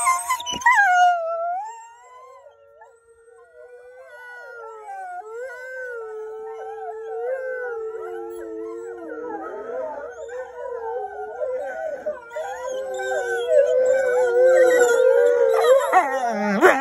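A pack of wolves chorus howling. One close, loud howl opens, then after a brief drop several howls at different pitches overlap and swell, loudest near the end.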